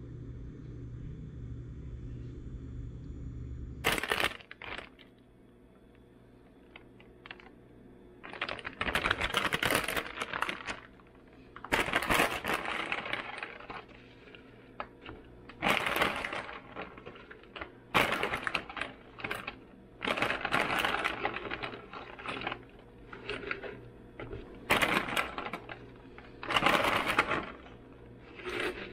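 A steady low hum cuts off with a sharp click about four seconds in. It is followed by a run of short noisy bursts, each a second or two long, like household things being handled and set down.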